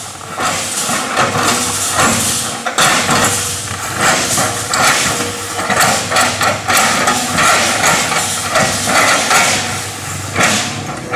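Excavator at work: its diesel engine running under load, with mechanical knocks and hiss whose level rises and falls throughout.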